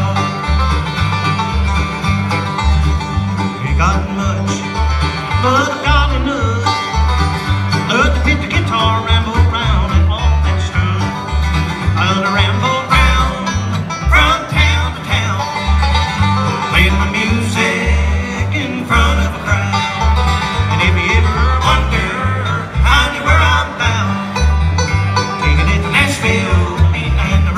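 Live bluegrass band playing through a PA: banjo, acoustic guitars and upright bass, with a steady, bouncing bass beat.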